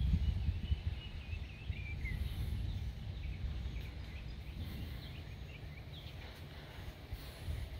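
Gusty wind buffeting the microphone in low, uneven rumbles that ease off after the middle, with small birds chirping now and then.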